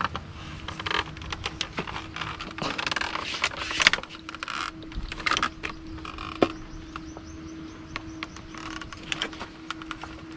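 Dry brush, twigs and branches rustling and snapping right at the camera, with sharp handling knocks, busiest in the first half. A faint steady hum runs underneath, and a quick run of faint high ticks comes about two-thirds in.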